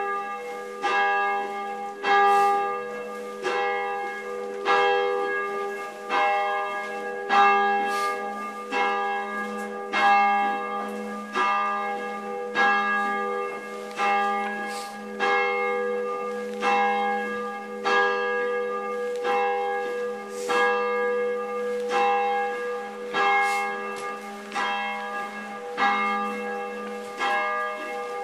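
A single church bell rung from below by its rope, struck about once every second and a quarter, with each stroke's hum carrying on under the next. It is a death knell, tolled once for each year of the deceased's life.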